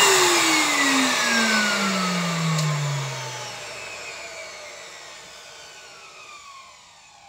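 Numatic WV370 wet-and-dry vacuum cleaner switched off, its motor whine falling steadily in pitch and fading away over several seconds as the motor and fan spin down.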